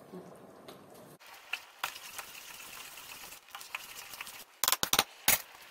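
Handling noise close to the microphone: scattered soft clicks, then a quick run of sharp knocks near the end as a hand moves over the camera by the stove.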